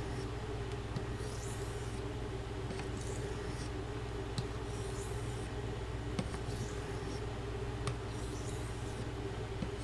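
Knife blade drawn lightly along a soft Arkansas whetstone, a soft scraping stroke every second or two with no pressure on the edge, over a steady hum.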